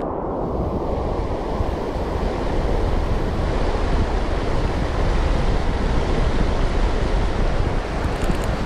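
Fast river current rushing over the rocks in a steady wash, with wind rumbling on the microphone.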